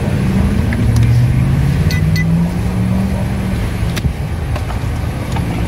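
Road traffic: a motor vehicle engine running, its low pitch rising slowly over a couple of seconds, over a steady rumble. There is a sharp click about four seconds in.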